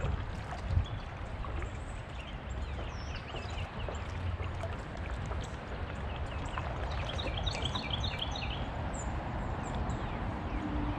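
Wind rumble and water noise around a kayak on open water, with birds chirping throughout. A quick run of repeated bird notes comes past the middle.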